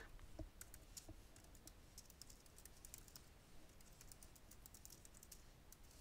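Faint computer keyboard typing: a quick, irregular run of key clicks as a line of text is typed.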